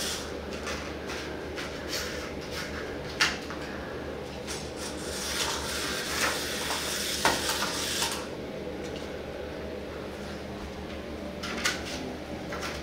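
A cat playing with a toy: scattered light taps and clicks, with a stretch of rustling about five to eight seconds in.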